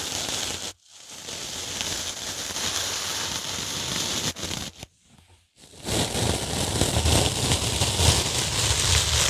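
Dry sponge handled close to the microphone, a dense crackling, scratching noise. It breaks off briefly about a second in and again for about half a second near the middle, then comes back louder and fuller.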